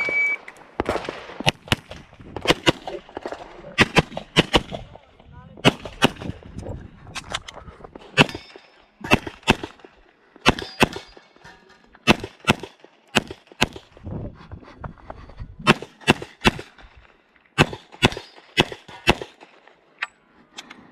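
A shot timer's start beep, then a long string of rapid pistol shots from an STI 2011 in .40 S&W, mostly in quick pairs and clusters with short pauses between, ending about nineteen seconds in.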